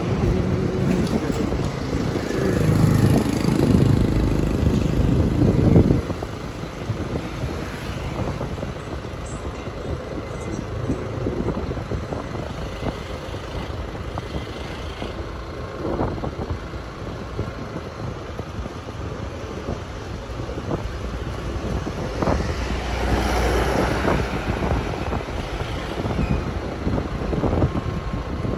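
Road traffic and wind buffeting the microphone from a moving vehicle: a steady low rumble of engines and tyres. It is loudest in the first six seconds, where it drops off suddenly, and swells again a little over twenty seconds in.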